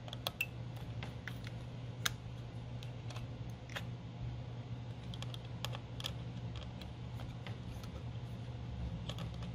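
Scattered light clicks and ticks of a small screwdriver and screws as the CPU heat sink's screws are undone on a laptop motherboard, over a steady low hum.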